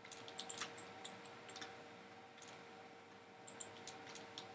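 Computer mouse clicking: quiet, scattered clicks, a quick run in the first second and a half and more near the end, with a gap between. A faint steady hum runs underneath.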